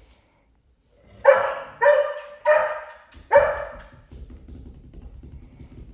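A dog barking four times in quick succession, about two-thirds of a second apart.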